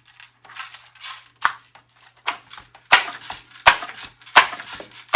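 Air rifle being worked between shots: a run of sharp clicks and clacks with short hissy tails, falling into an even rhythm of about one every three-quarters of a second in the second half.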